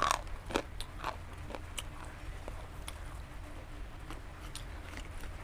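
Close-mic biting and chewing of a hard, brittle item: a few sharp crunches in the first second, then fainter scattered crunching clicks as it is chewed.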